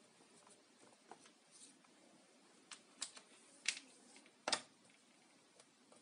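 A screwdriver backing the screws out of a PowerTec TR-901 hair dryer's plastic handle, with small handling clicks and knocks on the plastic casing. The sharpest click comes about four and a half seconds in.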